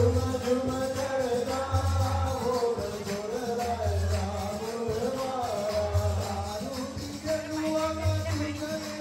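Hindu devotional bhajan: voices singing a wavering melody to percussion, with a low beat about every two seconds.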